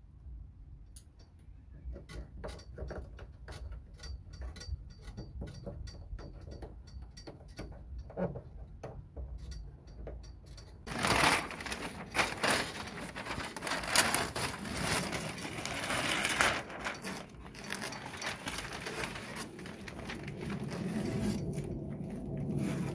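Scattered light clicks and taps of hands working on the underside of a car bonnet. About eleven seconds in, loud rustling, crackling and tearing of brown masking paper and tape pulled off the painted bonnet, which goes on for about five seconds and then thins to quieter handling and rustling.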